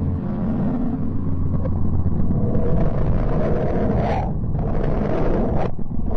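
Sonified space recording of a planet: a dense, noisy rumble over a steady low hum that swells slightly, with the hiss briefly dropping away twice in the second half.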